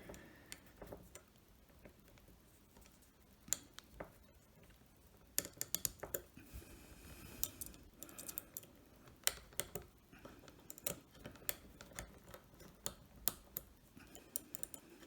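Small screwdriver tightening the screws of a metal belt buckle into a nylon belt. Faint, scattered light clicks and taps come sparsely at first, then several a second from about five seconds in.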